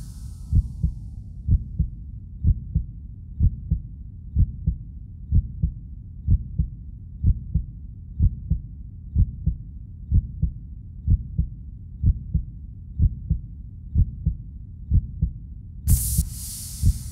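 Heartbeat sound effect: slow double thumps, about one beat a second, steady throughout. A loud hiss comes in near the end.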